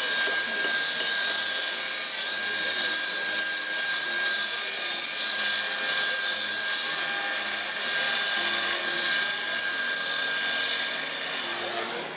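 Chainsaw running steadily as it cuts into a block of wood for a carving, dropping away near the end. Faint background music underneath.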